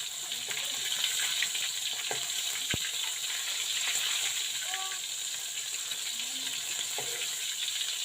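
Food sizzling as it fries in hot oil: a steady high hiss with scattered small crackles and one sharp click a little under three seconds in.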